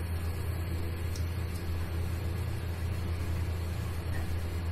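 Steady low hum with an even hiss over it: kitchen background noise, unchanged throughout.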